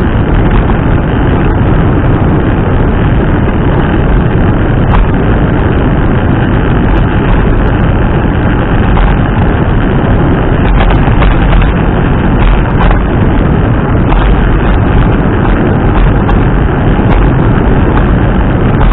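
Wind buffeting the helmet-mounted microphone during a scooter ride: a loud, steady rush heaviest in the low end, with a few faint ticks.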